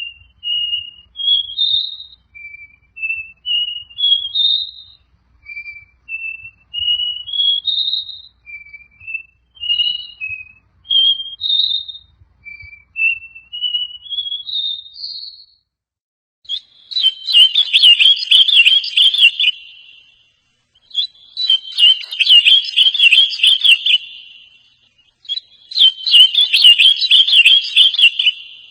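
Songbird singing phrases of clear whistled notes that climb step by step, each phrase about four seconds long. About halfway through, a different songbird takes over with three louder bouts of fast, buzzy warbling, each about three seconds long.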